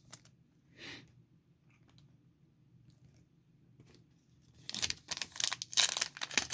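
A plastic trading-card pack wrapper being torn open and crinkled, a dense run of crackling tears starting about two-thirds of the way in after a few faint clicks.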